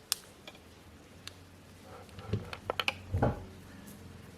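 Small hard clicks and taps of phone parts and tools being handled on a workbench during reassembly: one sharp click just after the start, then a quick run of clicks and a soft knock around three seconds in.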